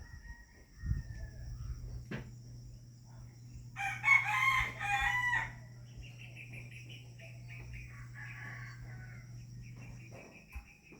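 A rooster crows once, loudly, for under two seconds about four seconds in. Fainter chicken calls follow it, over a low steady hum.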